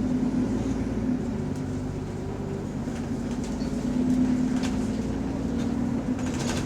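Diesel bus engine running, heard from inside the bus as a steady drone with occasional light rattles. The uploader says the bus has an exhaust leak that can barely be heard from inside.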